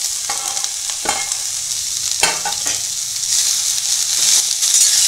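Grated cabbage, carrot, capsicum and onion sizzling in hot oil in a stainless steel kadhai while a spatula stirs them, clacking against the pan about once and twice a second in; the sizzle gets louder over the last couple of seconds. The filling is being sautéed to drive off its moisture.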